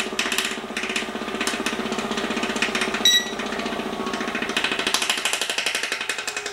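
Vibration-plate fitness machine running: its belt-driven DC motor and oscillating platform give a steady hum with a rapid, even pulsing. A short electronic beep from the machine's control sounds about three seconds in.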